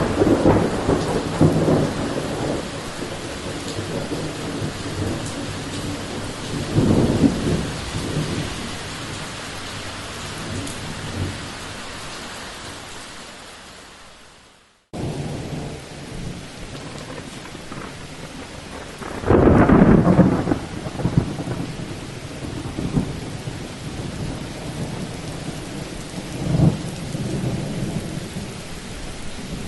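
Thunder rumbling over steady rain, with long low rolls that swell and die away. About halfway through, one recording fades out and another begins; a few seconds later it brings the loudest roll of thunder, followed by a smaller one.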